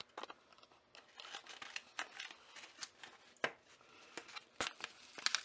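A paper mailer envelope being handled and opened: quiet, scattered rustles and crinkles with sharp clicks and snips.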